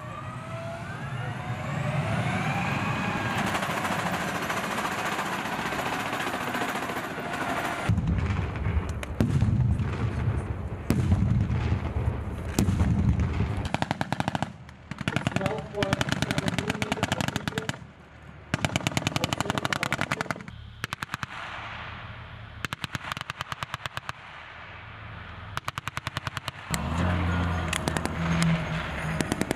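An armoured vehicle's engine runs with a whine that rises in pitch. From about eight seconds in, automatic weapons fire in rapid bursts, again and again, with short gaps between the runs.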